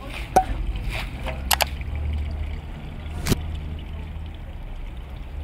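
Soapy water swishing and splashing as a long-handled squeegee pushes it across a soaked wool rug, with about five sharp knocks, two of them close together, over a steady low rumble.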